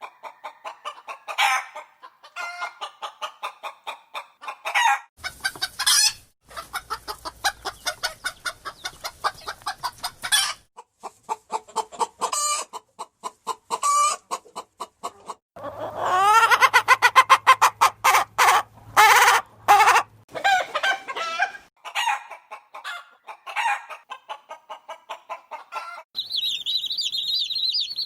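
Chickens clucking: a series of clips of hens giving quick runs of short clucks, with a louder, drawn-out cackling call in the middle. Near the end comes a high, continuous chirping.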